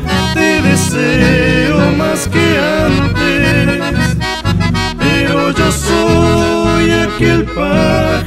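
Chamamé music: an accordion carries the lead melody over a steady bass and rhythm accompaniment.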